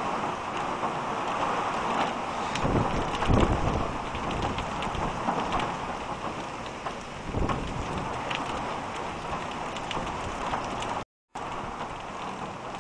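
Heavy rain falling steadily on a road and pavement, with strong wind gusts hitting in low rumbles, the strongest about three seconds in and another about seven seconds in. The sound cuts out for a moment near the end.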